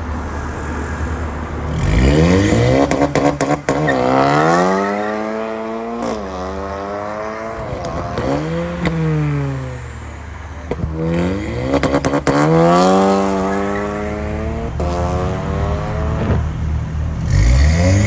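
Tuned Škoda Octavia vRS 245's turbocharged 2.0 TSI four-cylinder, with an axle-back Remus exhaust, accelerating hard. Its pitch climbs and drops back at each quick upshift, eases off briefly about halfway through, then pulls through the gears again.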